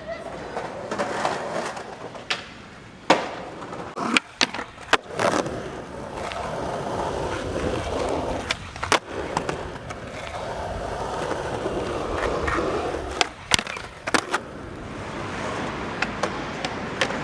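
Skateboard wheels rolling over street concrete and pavement, broken by repeated sharp clacks of the board being popped and landed in tricks.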